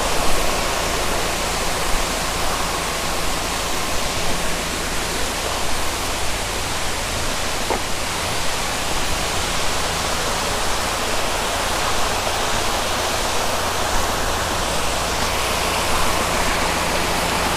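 Steady rushing of a small waterfall and forest stream, an even hiss that holds without change.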